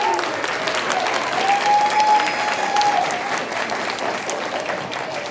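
Audience applauding, the clapping slowly dying down, with one long high call held over it for a couple of seconds about a second in.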